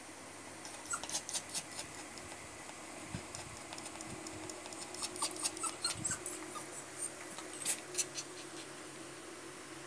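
Toy poodle panting fast with its mouth open, in short runs of wet clicking breaths at about five a second: the anxious panting of a dog frightened by fireworks.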